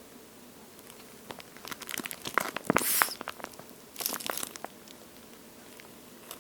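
A water-filled, toast-shaped squishy toy being squeezed in the hands: crackling, squishing sounds in two bursts. The first, louder burst comes about two to three seconds in, and a shorter one follows about four seconds in.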